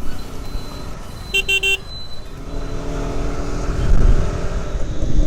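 Motorcycle riding through traffic, with engine and road noise, and a short vehicle horn toot about a second and a half in. The engine and road noise grow louder after about three seconds.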